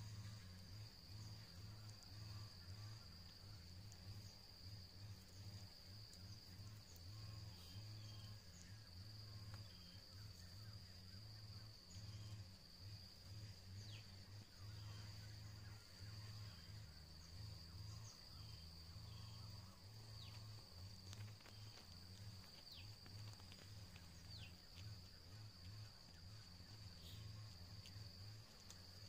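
Faint, steady high-pitched insect drone in the background, with a few faint high ticks over a low, fluctuating rumble.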